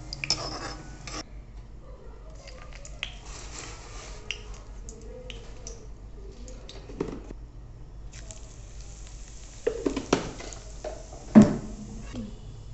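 Metal kitchen utensils clinking and scraping: a slotted spoon and pans, with scattered knocks and one louder knock near the end.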